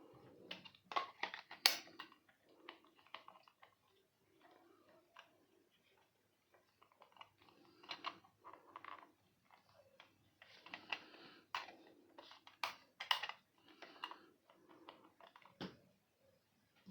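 Unboxing handling noises: irregular clicks, taps and short rustles as packaging and plastic parts are moved about, with the sharpest clicks near the start and again around two-thirds of the way in.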